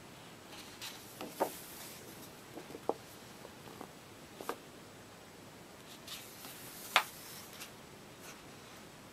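Paper pages of a large softcover colouring book being turned and smoothed flat by hand: soft rustling with scattered light crinkles and clicks, the sharpest about seven seconds in.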